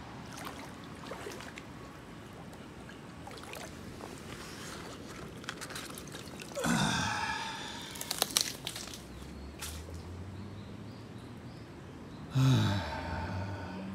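Wet squelching and dripping in waterlogged, flooded mud, with scattered small clicks. Twice, a person's loud breathy sigh falls in pitch, once about seven seconds in and again near the end.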